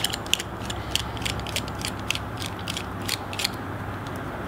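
Small irregular metal clicks and ticks as a precision screwdriver turns out the handle screws of a QSP Daeva folding knife, over a steady low hum.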